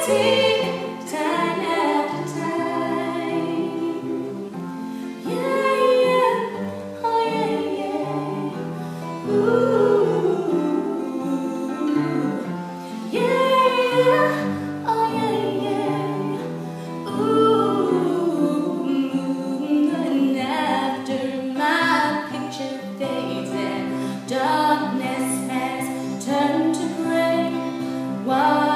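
Female voices singing a song, accompanied on a long-necked plucked string instrument.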